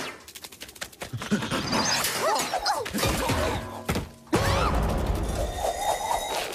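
Cartoon slapstick sound effects: a rapid clatter of clicks and knocks with short gliding squeals. About four seconds in comes a sudden heavy crash with a low rumble as something large falls and crushes the characters.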